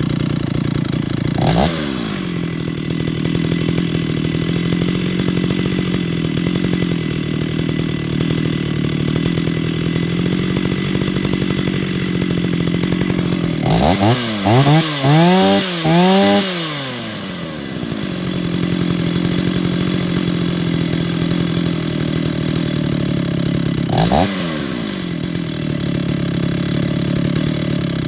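Small two-stroke chainsaw engine idling steadily, its throttle blipped once a couple of seconds in, revved four times in quick succession about halfway through, and blipped once more near the end.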